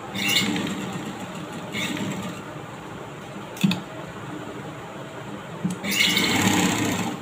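Sewing machine stitching through cotton fabric in three short runs, the last and longest near the end, with a single sharp click a little past halfway.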